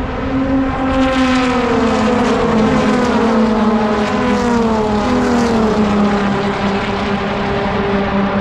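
Race cars' engines running at speed as a pack passes on the oval's straight, their notes sweeping and falling in pitch as they go by.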